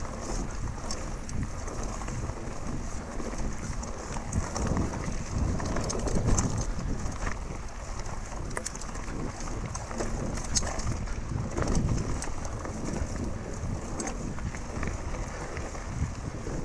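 Wind buffeting the action camera's microphone as a mountain bike rolls fast over a dirt and rock trail, with steady tyre noise and frequent light clicks and rattles from the bike over bumps.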